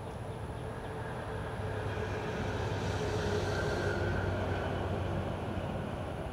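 Distant vehicle rumble: a steady low drone that swells about three to four seconds in, as something passes, then eases off.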